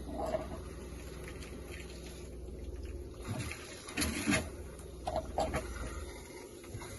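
Van's water pump humming steadily while pink RV antifreeze runs out of the disconnected shower line into a catch pan, with a couple of short knocks about four seconds in. The pump is pushing antifreeze through the hot and cold lines until it comes out pink, the last step of winterizing the water system.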